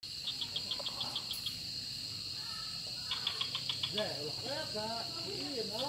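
Night insect chorus: a steady high-pitched trill, with bursts of rapid chirps at about eight a second near the start and again around the middle. Lower sounds that rise and fall in pitch join about four seconds in.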